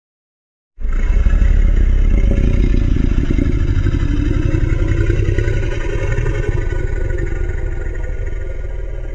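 A custom Godzilla sound effect: a long, dense rumbling rattle, heaviest in the low end, that starts suddenly about a second in and slowly fades.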